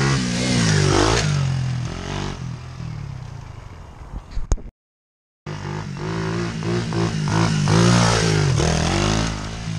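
Four-stroke single-cylinder pit bike engines revving hard as the bikes ride past close by, the pitch rising and then dropping away with each pass. The sound cuts out to silence for under a second near the middle, then a bike comes back up and passes again, loudest near the end.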